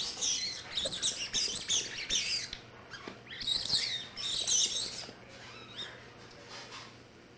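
Quick, high-pitched squeaks in two runs, the second starting about three seconds in, as a Dalmatian paws and mouths its blue rubber ball.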